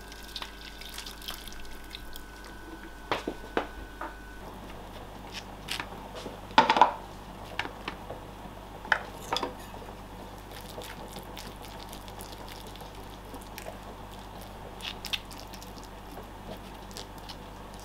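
Water poured from a kettle into a pan of spaghetti, then scattered clinks and knocks of a knife and fork against a baking tray as butter is spread on and mashed into baked sweet potato halves, the loudest clatter about seven seconds in. A low steady hum runs underneath.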